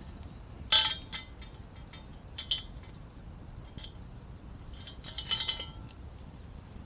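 Metal cooking pot and its hanging chain clinking as the pot is taken off the hook: a sharp ringing clink about a second in, another around two and a half seconds, and a quick run of clinks near five seconds.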